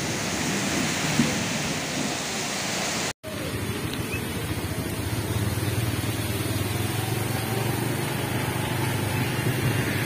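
Heavy rain pouring down in a dense, steady hiss. After a brief cut about three seconds in, the rain is softer and a vehicle engine hums steadily underneath.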